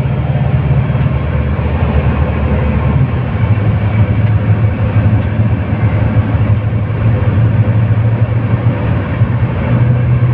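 Cummins diesel engine of an Iveco Metro city bus with an Allison automatic gearbox, heard from inside the rear of the cabin while the bus drives: a steady low drone under road noise, its note dropping slightly about three seconds in.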